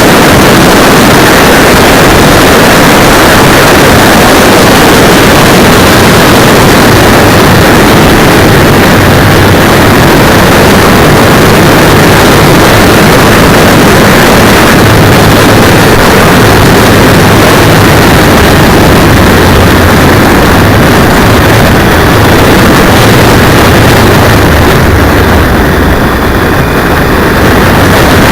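Motorcycle riding at speed, heard through a cheap 808 keychain camera's microphone strapped to the brake cylinder: a dense rush of wind noise over a low engine hum that shifts in pitch, loud and distorted throughout.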